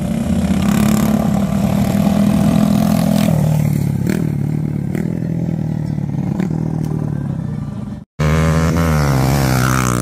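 Several motorcycle engines running at a dirt-track race, holding a steady pitch that drops a step about three seconds in. After a brief cutout about eight seconds in, the engines rise and fall in pitch as the bikes rev and accelerate past.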